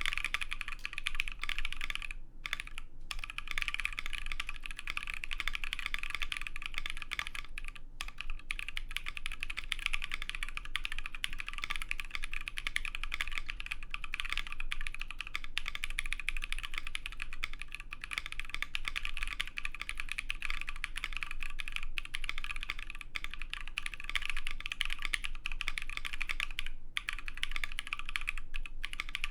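Steady fast typing on a Bakeneko60 mechanical keyboard with lubed AEBoards Naevy tactile switches, an O-ring-mounted FR4 plate and PBT keycaps: a dense, even clatter of keystrokes with a few brief pauses.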